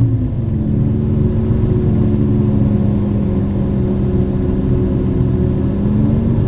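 Diesel train running at speed, heard from inside a passenger carriage: a steady low rumble of engine and wheels with a humming drone that dips slightly at the start and climbs again near the end.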